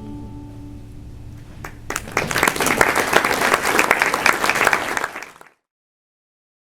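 The last acoustic guitar chord rings out and fades, then audience applause breaks out about two seconds in and cuts off suddenly a few seconds later.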